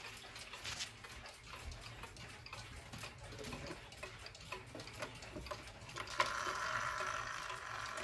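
Mechanical pendulum wall clocks ticking, with light knocks of the wooden case and door being handled. About six seconds in, a louder steady sound sets in.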